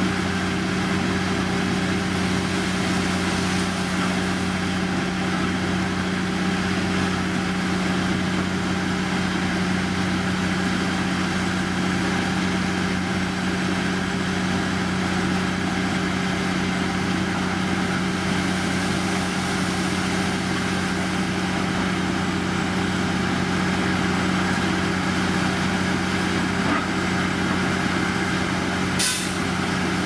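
Heavy diesel engine of road-construction machinery running steadily at a constant speed, with a brief sharp noise near the end.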